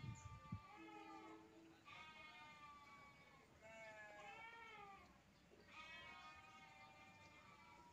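Faint bleating of livestock: about four wavering calls, each roughly a second long, coming every second or two.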